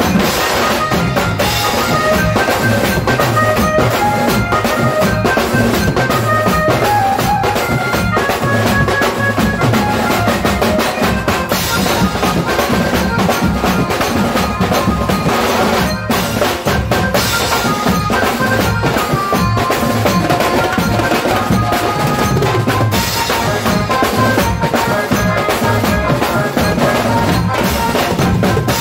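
Music with steady drumming under a melody.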